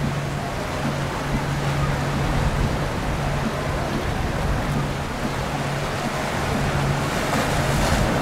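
Boat under way: a steady rush of wind and water with low rumble, over a steady low engine hum.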